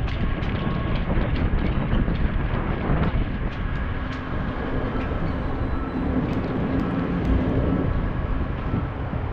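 Riding noise from a bicycle-mounted camera: wind buffeting the microphone over the rumble of the tyres on the alley pavement, with a few sharp clicks.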